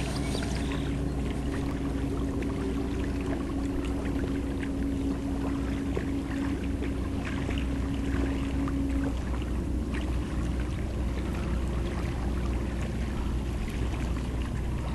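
Low steady drone of large lake freighters running across the water, with a steady hum that stops about nine seconds in. Water trickles and laps lightly against the kayak.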